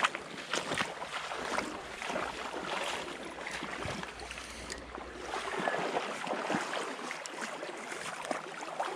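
Shallow stream rushing steadily over a rocky riffle, with wind buffeting the microphone for a couple of seconds midway and a scattering of small clicks.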